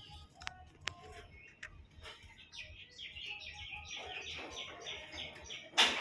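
Small pet birds chirping, a quick series of short high chirps about three a second, among a few faint clicks. A single loud sharp knock comes near the end.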